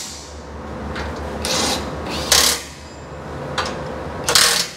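Cordless driver with a socket extension running in three short bursts, snugging up the bolts of a steel under-vehicle bash plate before they are torqued by hand.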